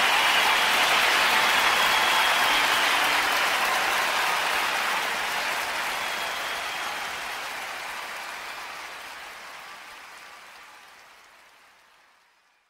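Audience applauding at the close of a live song recording, steady at first and then fading out gradually to silence.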